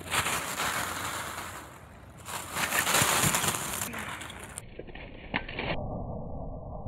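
A pile of plastic ping pong balls clattering and rustling as a puppy leaps and scrambles through them, in two loud rushes, the second about two seconds in. After about four and a half seconds the clatter turns duller and muffled.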